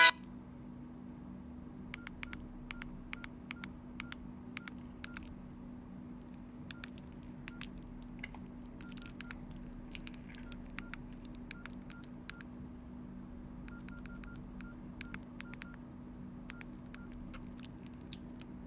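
Nokia N82 keypad key tones: short clicky beeps in quick runs, from the phone's buttons being pressed to scroll through its menu, with a faint steady hum underneath.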